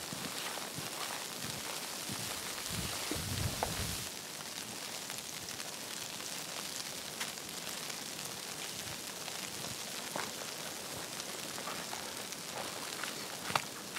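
Footsteps in deep snow for the first four seconds, then a steady soft hiss of the snowy forest with scattered faint ticks.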